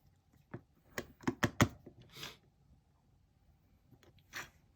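Small plastic snap-fit model-kit parts clicking and knocking as they are handled and pressed into place, a quick cluster of clicks about a second in, then a couple of softer rustles.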